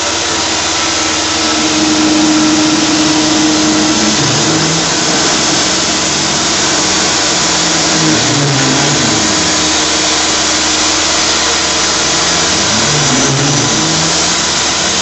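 Shop vacuum running steadily, its hose held at the cutter, together with a Tormach PCNC 1100 CNC mill's spindle milling a UHMW plastic disc. A lower tone glides up and down twice as the cut goes on.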